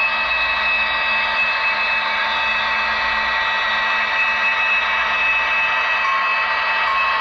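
Model diesel locomotive running past with a steady engine drone and high whining tones. From about six seconds in, a short tone repeats roughly once a second.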